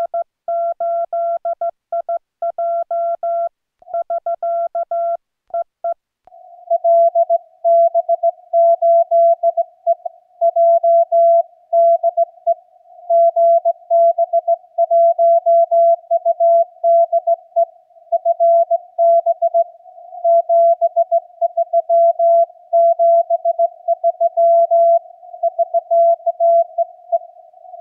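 Morse code (CW) at about 15 words per minute, heard as a keyed tone of one pitch. For the first six seconds it is the transceiver's clean sidetone from the operator's paddle, sharp-edged with silent gaps. After that it is the other station's reply, received through the Yaesu FTDX10 with band noise and fading (QSB) that makes the signal rise and fall in strength.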